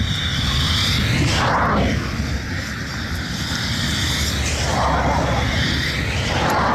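Road traffic: cars pass one after another on a busy road, their noise swelling and fading about three times over a constant low rumble.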